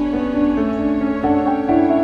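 Slow, gentle instrumental background music of held notes, the melody moving to a new note every half second or so.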